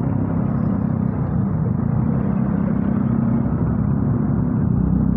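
Motorcycle engine running steadily while riding, with wind and road rumble on a cotton-covered earphone microphone.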